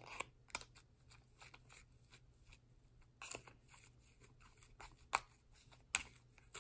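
Faint, scattered crinkling and small clicks of a thin plastic candy-kit tray and its wrappers being handled while candy dough is mixed in the tray by hand, with a few sharper clicks now and then.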